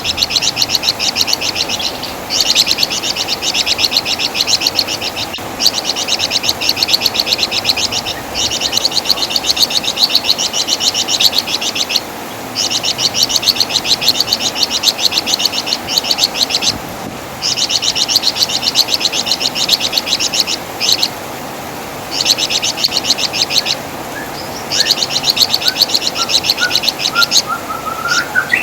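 Javan fulvetta (wergan jawa) giving its high, rapid chattering in repeated bouts of two to three seconds, with short breaks between. Near the end comes a short run of lower notes rising in pitch.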